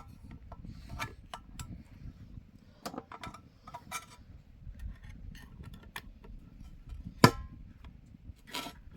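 Scattered light clicks and clinks of objects being handled, with one sharp, loud knock about seven seconds in, over a steady low rumble.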